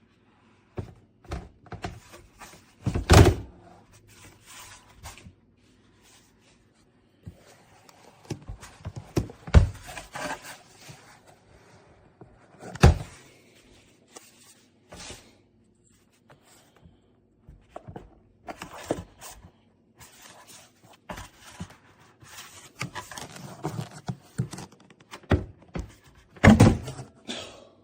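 Irregular thunks, knocks and clatter of objects being handled, the loudest about three seconds in, again around ten and thirteen seconds in, and near the end, over a faint steady hum.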